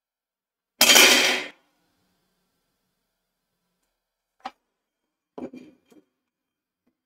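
A metal combination square toppling over and clattering onto a plywood tabletop, loud and brief. Later a sharp click and a few light knocks as it is picked up and set upright again.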